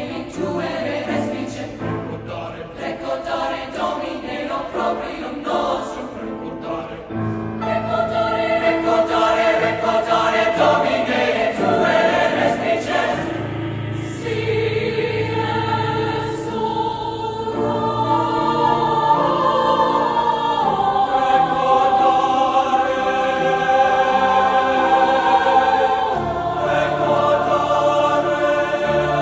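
A high school choir singing held chords in several parts, swelling louder about eight seconds in.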